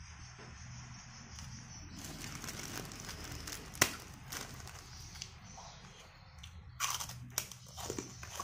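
Plastic bag crinkling and rustling as food is pulled out of it by hand, with a sharp click about four seconds in and a cluster of crackles and clicks near the end.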